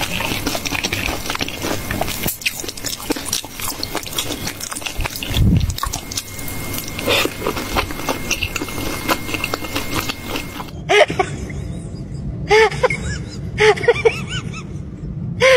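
A toddler chewing and smacking on a soft bread bun, with busy wet clicking mouth sounds. After a cut, about three seconds before the end, there are several short high cries that bend up and down in pitch.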